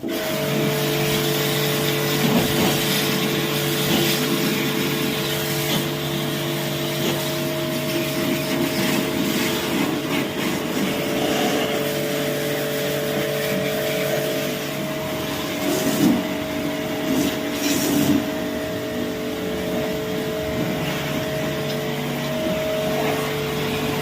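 Electric jet pump (high-pressure water pump) running steadily, its motor humming under a continuous hiss of water spray, with a few brief louder surges late on.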